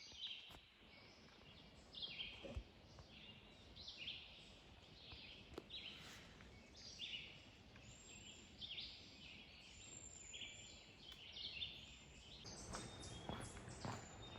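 Songbirds singing, a steady run of short high phrases from several birds overlapping, faint. Footsteps come in near the end.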